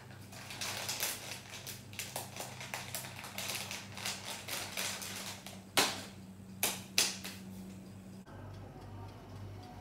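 Clear plastic bag crinkling and crackling as it is handled, with three loud sharp cracks about two-thirds of the way through. Near the end it gives way to the low steady hum of an electric countertop oven running.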